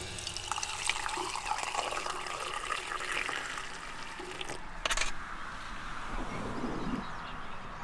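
Running water: a steady splashing hiss, with a few small clicks and a brief louder splash about five seconds in.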